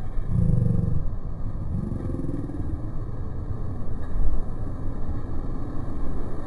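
Steady low rumble of outdoor background noise, with a brief low hum about half a second in.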